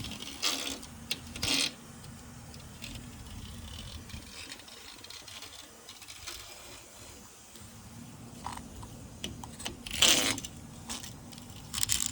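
Razor blade cutting and pulling away excess window-screen mesh along the frame: short scratchy rasps early, a few light clicks, and a louder rasp about ten seconds in.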